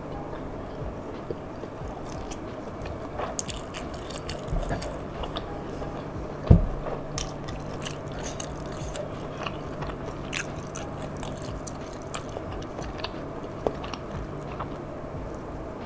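Close-miked eating: chewing a mouthful of nasi padang eaten by hand, with many small wet mouth clicks and smacks and light rustles as fingers pick rice from the paper wrapper. A single louder thump comes about six and a half seconds in, over a faint steady hum.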